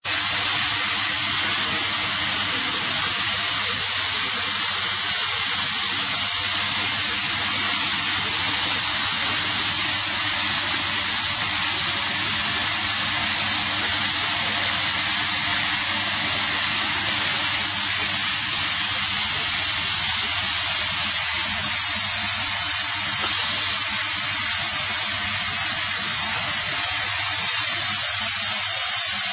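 A steady, loud hiss that holds even throughout, with no rhythm of strokes or distinct knocks.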